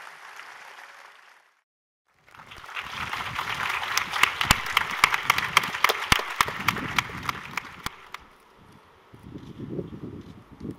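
Audience applauding, with many sharp individual claps close by. The sound drops out for a moment about a second and a half in, then the applause resumes and dies away about eight seconds in.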